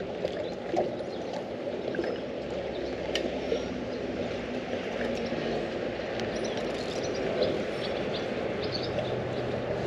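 Water trickling and gurgling steadily, with scattered small clicks.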